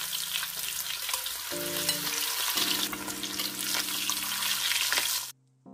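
Parboiled baby potatoes deep-frying in hot oil, a steady sizzle with crackling, while a slotted spoon stirs them in the steel pan. The sound cuts off abruptly near the end.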